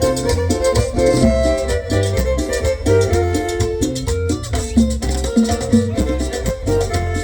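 Chanchona band playing a Latin dance tune: violin melody over a steady pulsing double-bass line.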